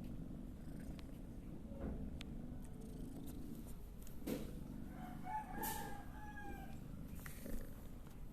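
Domestic cat purring, a low steady rumble, with one pitched call about five seconds in that lasts about a second.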